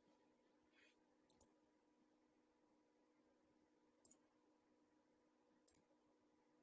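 Near silence with a faint steady hum, broken three times by a quick pair of computer mouse clicks, about a second, four seconds and five and a half seconds in.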